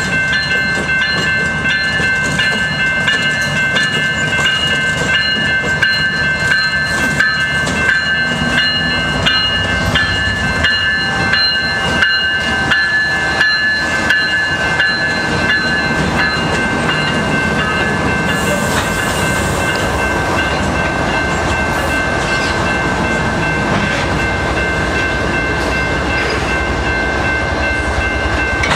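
A CN freight train passing close by: two GE ET44AC diesel locomotives rumble past, then covered hopper cars roll by from about halfway in. Sharp wheel clicks over the rail joints come through the first half, under a steady high ringing tone.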